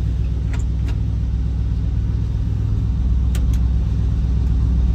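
Chevrolet 350 small-block V8 idling steadily, with a few light clicks over it.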